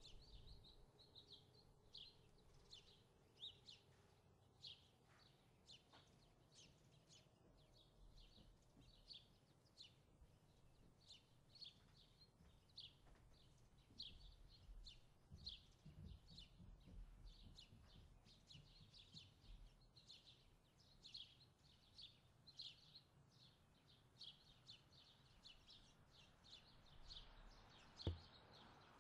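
Faint bird chirping: short high chirps repeating about twice a second over a low background rumble, with a single soft knock near the end.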